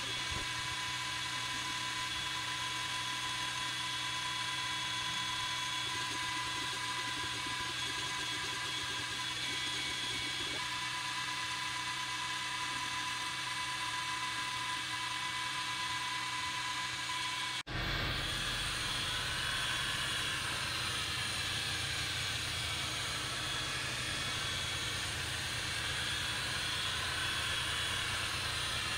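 Creality Falcon 2 diode laser engraver running a job: a steady whir with a high, steady whine from its fans and motors. After a brief dropout about two-thirds through, the whine rises and falls in pitch as the head moves.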